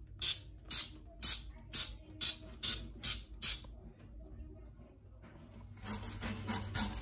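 Trigger spray bottle squirting foaming cleaner onto a stainless-steel shower head in short, quick squirts, about two a second. About six seconds in, a scouring pad starts scrubbing the metal with a steady rubbing.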